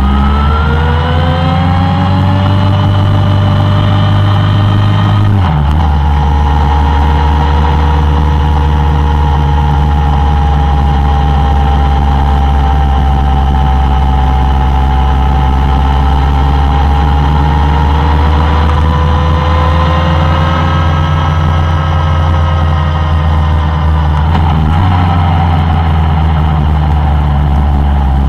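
Suzuki Bandit 1200's inline-four engine under way, heard from the bike itself over a heavy low rumble. The revs climb over the first few seconds, drop at a gear change about five seconds in, then hold fairly steady, rising and falling gently with the road.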